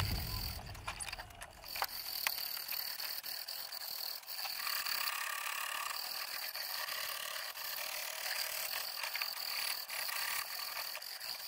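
Jeweller's piercing saw cutting through brass sheet, a steady fine rasping of the blade strokes with a few sharp ticks in the first couple of seconds.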